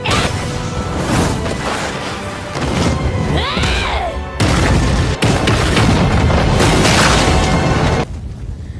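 Anime fight-scene soundtrack: heavy booms and crashing impacts over dramatic music, with a loud sustained stretch through the middle that drops off sharply near the end.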